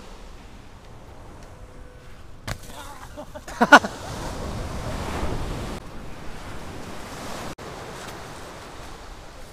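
Small waves breaking and washing up on a sandy beach, with wind on the microphone. A short, loud, pitched cry rings out a little under four seconds in.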